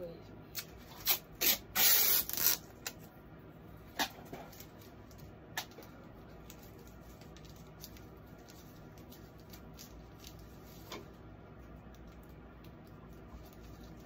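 Tape pulled off a roll in a few short rips, the loudest and longest about two seconds in. Scattered handling clicks follow.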